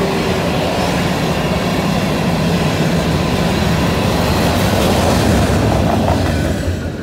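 Freight cars rolling past on a curve: a steady rumble and rattle of steel wheels on rail, with a faint wheel squeal over the first few seconds. The sound drops away at the very end as the last car passes.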